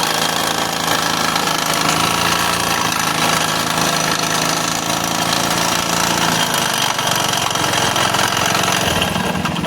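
Hero Splendor iSmart motorcycle's single-cylinder four-stroke engine running steadily with a loud, rapid knocking rattle. The mechanic puts it down to a damaged crank bearing and connecting rod.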